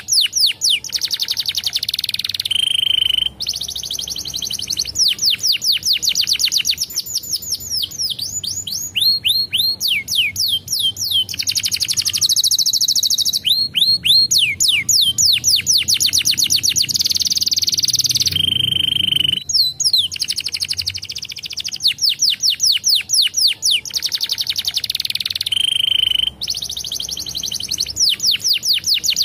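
Domestic canary singing in long rolling phrases of fast repeated notes, each a quick falling sweep, broken now and then by a short steady whistle.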